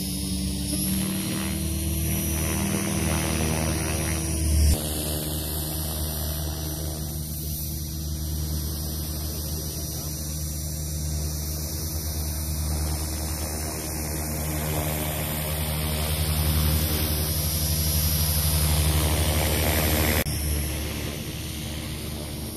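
Electric RC helicopter, a JR NEX E6 550, in flight: rotors and motor making a steady buzzing hum that changes with its manoeuvres. It grows louder about two-thirds in, then drops abruptly near the end.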